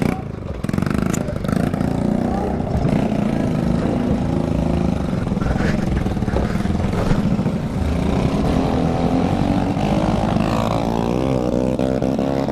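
Small 49cc Shineray scooter engine with a straight pipe and no muffler, running loud and steady under way, its pitch rising near the end.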